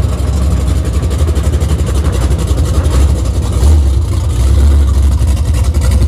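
1989 Dodge D150 drag truck's 440 big-block V8 running at low speed as the truck rolls up. The exhaust gives a loud, deep, pulsing rumble that swells a little around the middle.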